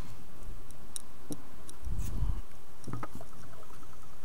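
Scattered light clicks and taps from handling the motion sensor's small plastic parts and circuit board, with a dull knock about two seconds in and a quick run of small ticks near the end, over a steady low hum.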